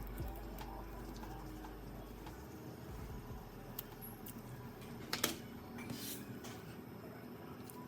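Faint scattered clicks and taps, with one sharper click about five seconds in, over a low steady hum.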